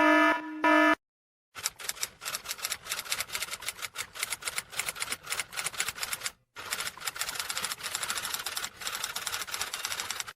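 A pulsing electronic beep tone that stops about a second in, followed by rapid typewriter key clicking, a sound effect that runs on with a brief break near the middle.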